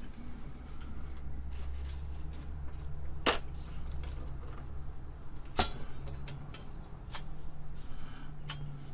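Scattered sharp clicks and knocks of small parts being handled, two louder ones about three and five and a half seconds in, over a low steady hum.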